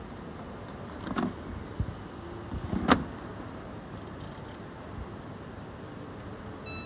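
A hand works the dial and buttons of a Samsung washer dryer's control panel over a steady background hum. There are a couple of knocks and a sharp click about three seconds in, then a short electronic beep near the end.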